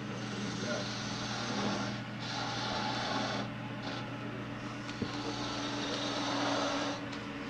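Wood lathe running with a steady motor hum while a turning tool cuts the spinning wood, the hissing cut stopping and restarting between passes, about two, three and a half and seven seconds in. A single sharp click about five seconds in.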